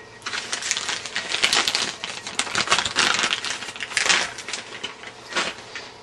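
Clear plastic bag crinkling and rustling in the hands as a hard drive is unwrapped: a dense run of small crackles with a few louder bursts.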